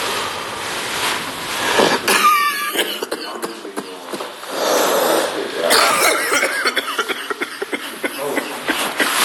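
A man coughing in rough fits, a bout about two seconds in and another about six seconds in: a smoker's cough from smoking a blunt.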